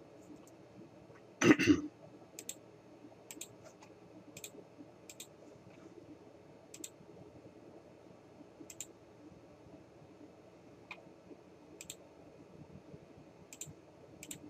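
Computer mouse clicking: scattered single sharp clicks, about ten, at irregular gaps of a second or two, over faint room tone, with one brief louder sound about a second and a half in.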